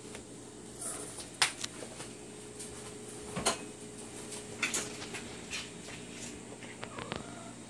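Sphynx cats scuffling on a shaggy mat bed: scattered soft knocks, clicks and rustles, the sharpest about a second and a half in and again at three and a half seconds, over a faint steady hum.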